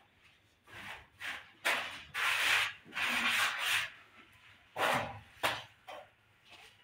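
Hand trowel scraping wet cement plaster across a wall in a run of about eight strokes, most of them short, with two longer sweeps near the middle.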